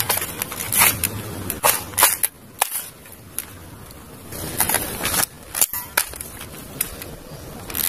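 Red plastic M4-style toy rifle giving a string of sharp, irregularly spaced cracks and clicks, about a dozen in all.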